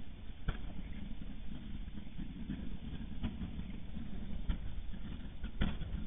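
Volcano infrasound from Tungurahua, sped up 200 times into the audible range: a steady low rumbling hiss with a few sharp clicks, the loudest near the end. This is the quiet background before the sustained eruption jet noise sets in.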